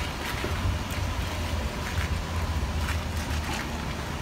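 Vehicle engine idling with a steady low rumble, with a few faint knocks over it.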